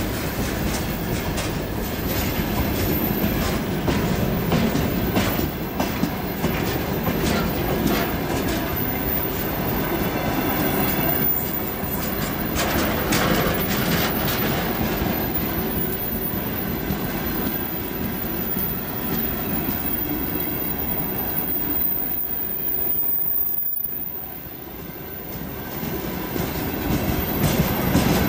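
Freight wagons, covered wagons and then tank cars, rolling past close by, their wheels clattering over the rail joints in a steady clickety-clack. The sound dips briefly about three-quarters of the way through, then builds again.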